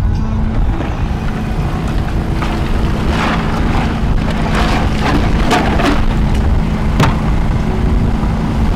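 A boat's motor running steadily, with a constant low hum, and a few sharp knocks about five to seven seconds in.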